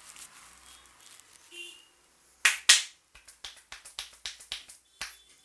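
Percussive hand strikes of an Indian head massage: two loud, sharp slaps or claps in quick succession, then a rapid run of about eight lighter strikes, roughly four a second.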